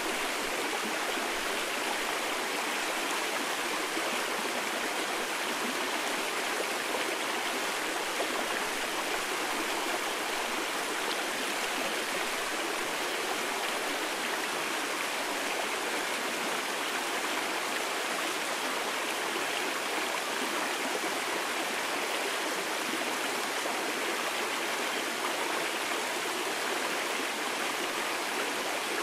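Mountain valley stream flowing: a steady, even rush of water with no change throughout.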